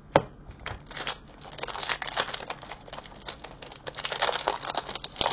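Foil trading-card booster pack being handled and torn open by hand, its wrapper crinkling. There is a sharp click just after the start, then dense, rapid crackling from about a second and a half in.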